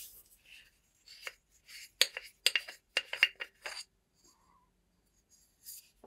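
Screw-together metal body of a Trustfire T90R flashlight being twisted apart by hand: the stiff threads make a run of short scraping clicks, densest about two to four seconds in.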